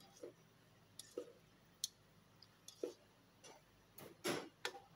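Carbonara cream sauce simmering in a pan over a gas flame: a few soft bubble pops scattered through, with sharp little clicks and a louder brushing noise about four seconds in.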